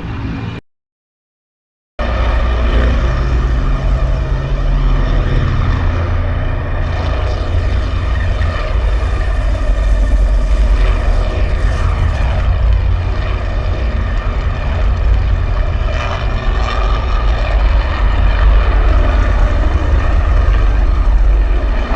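Star Wars LIUV transport exterior engine sound effect: a steady, loopable engine drone with a heavy low rumble and an even hiss above it. Just before it, the end of the LAAT gunship engine loop cuts off less than a second in, followed by a short silence.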